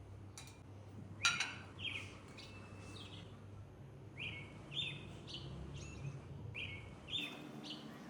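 Small birds chirping: short chirps that fall in pitch, repeated many times over a low steady hum. A sharp clink about a second in is the loudest sound.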